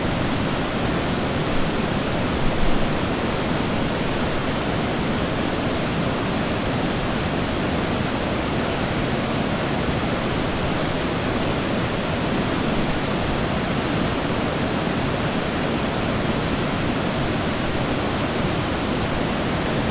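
Waterfall crashing steadily: an even, dense rush of falling water with no breaks.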